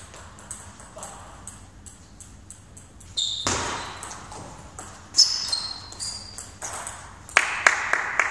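Table tennis ball played back and forth in a rally, a run of sharp clicks off bats and table, with a few short high squeaks from shoes on the hall floor. A quick cluster of loud ball clicks near the end.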